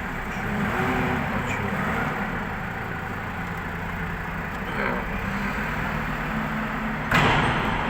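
Truck diesel engine idling steadily, with a sudden loud burst of noise near the end.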